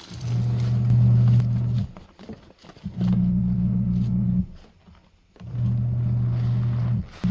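Washing machine motor running in stretches of about a second and a half, stopping for about a second between each, as it turns the drum back and forth through a load overloaded with dish-soap suds. Faint clicks and crackles come in the pauses.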